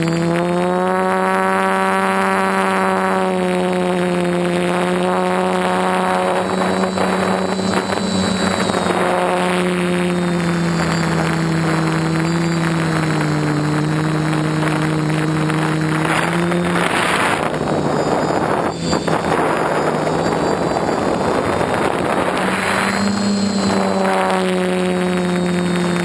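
DJI F450 quadcopter's four electric motors and propellers, heard from the onboard camera: a steady buzzing hum whose pitch drifts up and down as the throttle changes. A little past halfway the hum gives way to a rush of wind noise for about six seconds, then returns.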